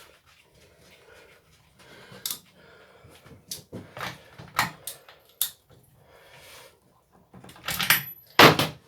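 Clicks and knocks of tools and parts being handled while working on a strimmer's small two-stroke engine, with a louder clatter of knocks near the end; the engine is not running.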